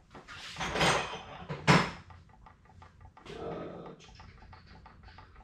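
Metal tools and sockets clattering and rattling as someone rummages for a socket and extension, with one sharp clack a little under two seconds in.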